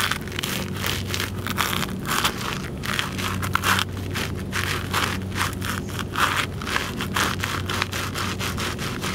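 Dry cereal with raisins being crushed and ground underfoot by leather-soled loafers on pavement: a run of gritty crunches and scrapes, about two to three a second, as the soles stomp and twist on the pile.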